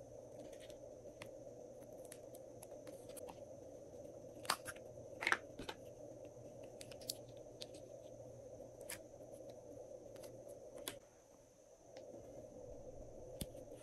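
Glossy slime being worked by hand: scattered sticky clicks and crackling pops, the loudest about five seconds in, over a faint steady hum.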